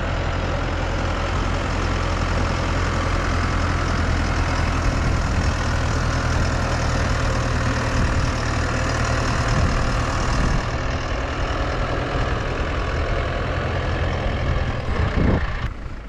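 Tractor engine running steadily at an even pitch, with a broad rushing noise over it.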